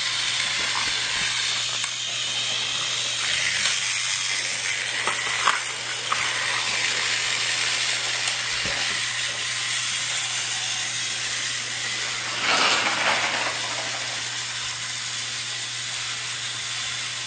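Steady hiss with a low hum underneath, a few faint clicks and knocks, and a brief louder rush about twelve seconds in.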